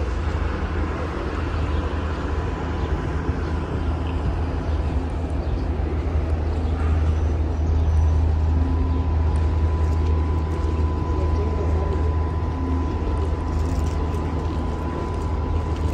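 Steady city ambience: a low rumble of distant traffic, with a faint steady whine joining about six seconds in.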